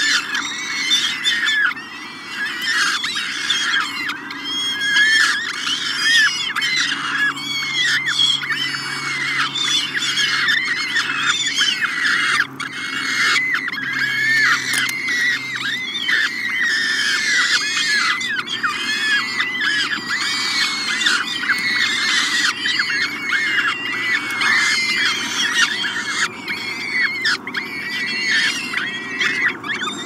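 Downy peregrine falcon chicks begging for food as they are fed, a continuous stream of rapid, overlapping high-pitched calls.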